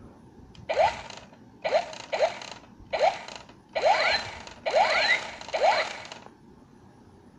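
Battery-powered toy blaster pistol firing its electronic shot sound seven times as the trigger is pulled, about once a second. Each shot is a short noisy blast with a rising zap.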